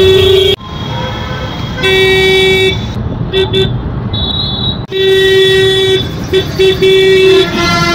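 Vehicle horns honking repeatedly in street traffic: a series of short and longer beeps on one steady pitch, with a quick run of them in the second half. Under them is a constant rumble of engine and road noise from a moving auto-rickshaw.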